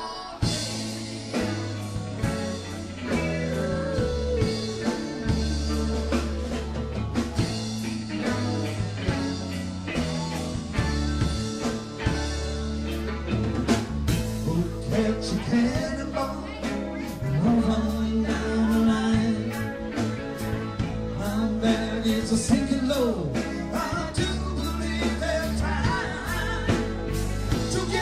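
Live rock band recording: drums keeping a steady beat under bass, guitar and other instruments.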